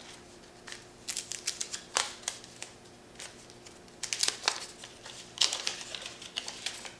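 A wax-paper card pack being torn open by hand, its wrapper crackling and crinkling in several short bursts.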